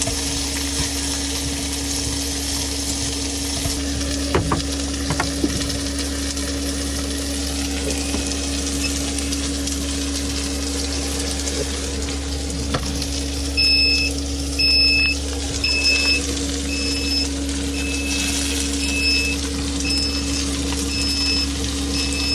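Food frying and sizzling in a pan over a steady hum. About two-thirds of the way through, an electronic warning beep starts repeating, a little more than once a second.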